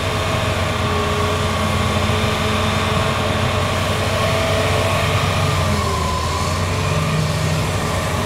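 Hitachi Zaxis 350 hydraulic excavator's diesel engine running steadily under load while it digs and swings a bucket of coal, with a whine over the engine hum that dips in pitch briefly about five seconds in.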